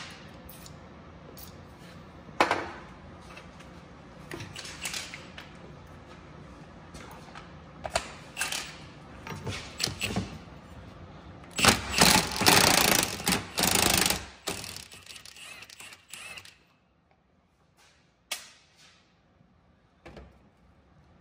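Cordless Milwaukee impact wrench hammering for about three seconds, from about halfway through, to break loose the pulley nut on an old alternator. Before it come scattered clicks and knocks of tools and parts handled on a metal bench.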